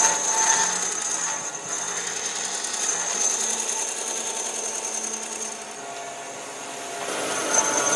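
Electric power tool running, a steady high whine over a rough mechanical noise, easing off briefly near the end.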